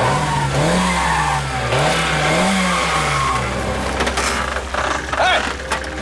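A van's engine revved hard twice, its pitch climbing and falling each time, then running on more steadily, with a few short sharp sounds near the end.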